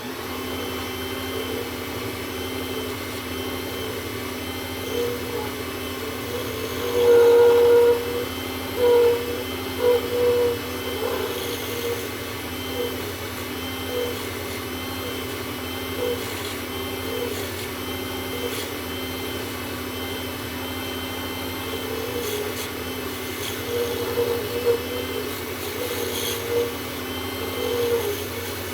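WEN lathe running steadily while a turning tool cuts an acrylic pen blank, the cutting coming and going in uneven louder scraping passes, loudest about seven seconds in.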